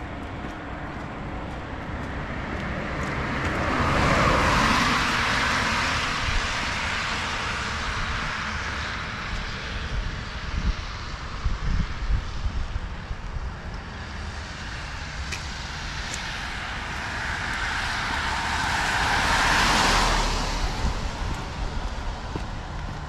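Two vehicles passing on a rain-wet road, their tyre hiss swelling and fading, the first about four seconds in and the second near the end, over a steady low rumble.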